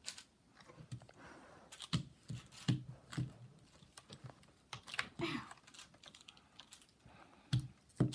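Rubik's cube being turned during a speed solve: irregular runs of sharp plastic clicks as the layers snap round.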